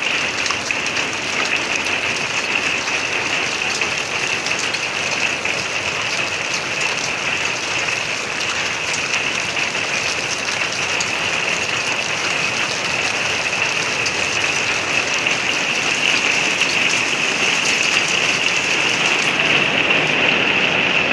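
Heavy thunderstorm rain pouring down steadily, a dense patter of drops on surfaces, growing a little louder toward the end.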